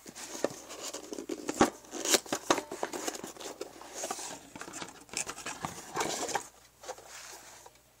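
A small cardboard box being opened and handled by hand: rustling and scraping with many sharp taps and clicks, dying down after about six and a half seconds.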